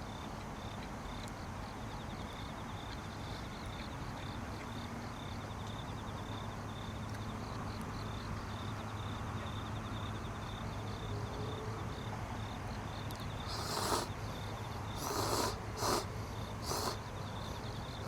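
A night insect chirping in a steady, rapid, high-pitched pulse over a low steady background hum. Near the end, four short bursts of rustling noise stand out above it.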